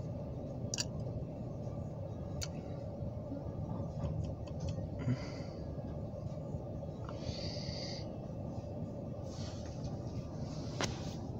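Freight train of covered grain hopper cars rolling slowly past: a steady low rumble with a few sharp clicks.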